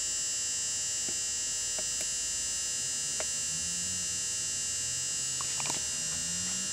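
Steady electrical hum with a high-pitched whine, a few faint clicks, and light knocks near the end.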